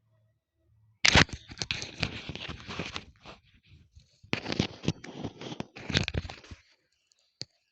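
Two bursts of crackling, rustling handling noise with many quick clicks, the first starting about a second in and the second about four seconds in, followed by a single short click near the end.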